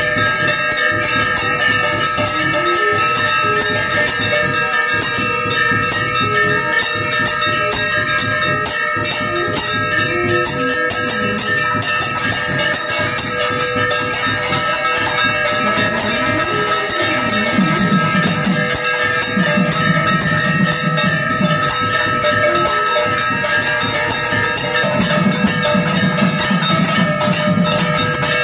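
Temple bells ringing rapidly and without pause during an aarti, many ringing tones overlapping. A deeper sound comes in and out in the last third.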